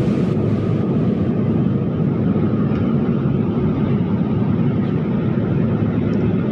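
Steady low rumble of a passenger airplane's engines and rushing air, even and unbroken.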